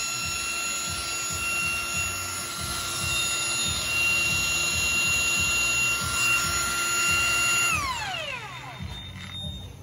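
INGCO cordless angle grinder running unloaded with no disc fitted, a steady high motor whine; about eight seconds in it is switched off and the pitch falls away as it winds down over about a second.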